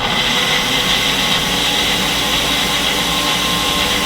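Ninja blender switching on and running steadily, chopping the health-mix ingredients with no liquid added. The motor starts suddenly and keeps an even, loud whir.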